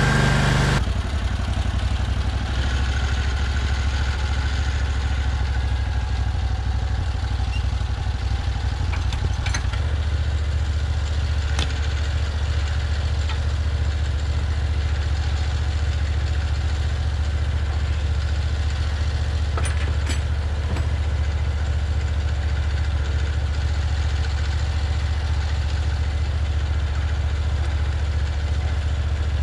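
The engine of a Hud-Son Oscar 336 bandsaw sawmill runs steadily. About a second in it drops from a higher speed to a lower, even idle. A few sharp metal clanks sound over it.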